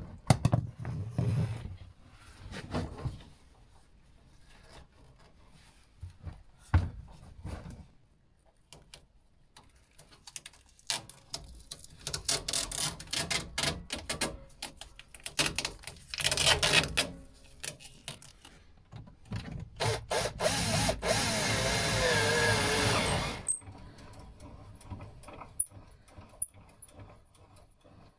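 Ribbed plastic flexible extraction hose being handled, rubbed and scraped as it is worked onto a table saw's dust outlet, with scattered knocks. About two-thirds of the way through, a cordless drill runs steadily for about three seconds, then stops suddenly.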